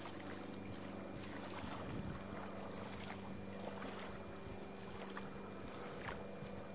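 Faint, steady low hum with a light hiss over it and a few soft clicks.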